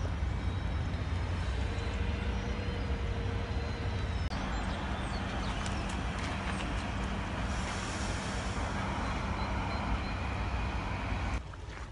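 Steady outdoor background noise with a heavy low rumble, its character shifting slightly about four seconds in.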